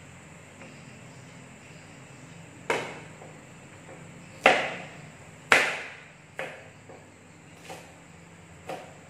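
Kitchen knife chopping on a cutting board: about seven irregular knocks, the loudest two near the middle, the later ones lighter.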